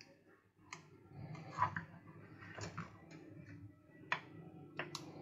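Scattered sharp clicks and small taps as a laptop charger's plug housing and a soldering iron are handled during wire soldering, over a faint low hum.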